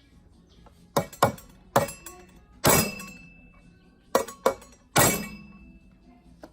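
Seven sharp metal-on-metal clanks in irregular groups, the two heaviest ringing briefly, as metal parts of a cutting machine are knocked or struck during restoration.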